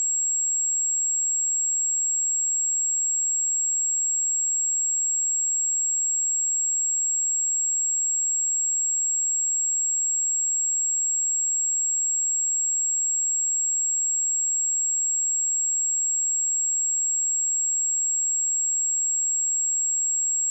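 A pure 7612 Hz sine-wave test tone, held steady and unbroken at a constant level.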